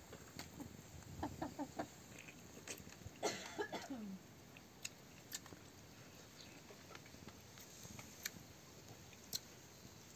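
Domestic hen clucking: a quick run of short clucks about a second in, then a louder, longer call that falls in pitch around three seconds in. A few scattered sharp clicks follow.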